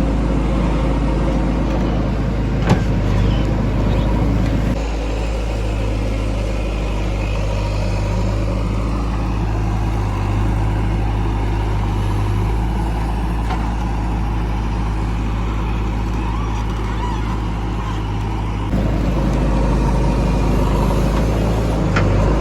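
Heavy diesel engine running steadily; its note drops a little about five seconds in and comes back up a few seconds before the end, with a single sharp knock about three seconds in.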